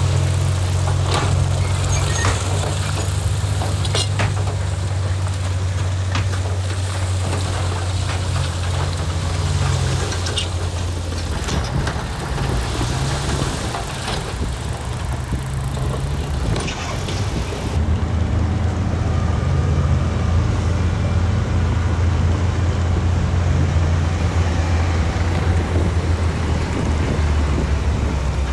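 Heavy diesel earthmoving machinery (bulldozer or dump truck) running under load with a deep, steady engine drone, with scattered sharp clanks in the first half. The engine note drops away briefly around the middle, then picks back up strongly.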